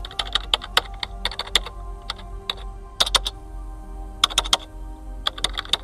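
Keyboard typing: irregular key clicks in quick runs of several strokes with short pauses between, over soft sustained background music.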